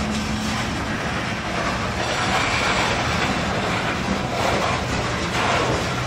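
Covered hopper cars of a freight train rolling past, their steel wheels running on the rails in a steady, continuous noise.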